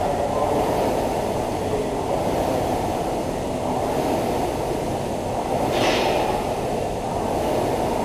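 Air-resistance flywheel of a Concept2 rowing machine, set to level 10, whirring steadily as it is rowed hard, with a brief hiss about six seconds in.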